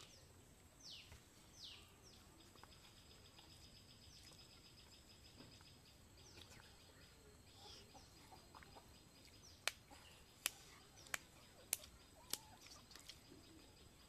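Faint outdoor ambience with birds calling: a couple of quick downward-sweeping chirps near the start, then a high buzzy trill for a few seconds. About two-thirds of the way through come five sharp clicks, evenly spaced about two-thirds of a second apart.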